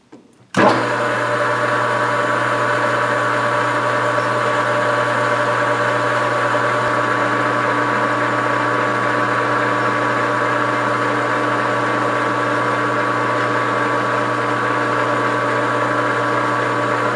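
Metal lathe starting up and running steadily, with a steady hum and several constant tones, while a letter L drill bit held in the tailstock chuck drills into the head of a fired .260 brass case. It comes on suddenly about half a second in.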